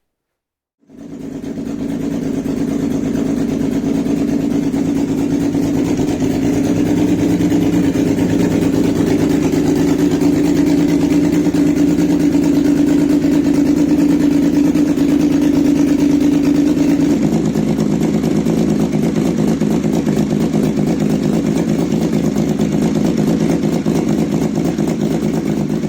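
Kawasaki Z1300's water-cooled inline-six engine running steadily through its custom exhaust; the sound cuts in suddenly just after the start. About two-thirds of the way through, its note changes and turns rougher.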